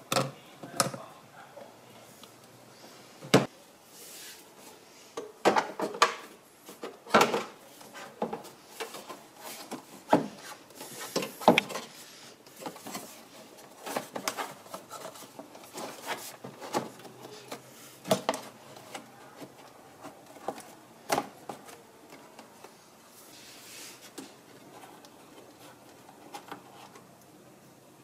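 Irregular clicks, knocks and rubbing of hand work in an engine bay: pliers on a spring hose clamp and the rubber intake hose and plastic air box ducting being pushed and fitted into place.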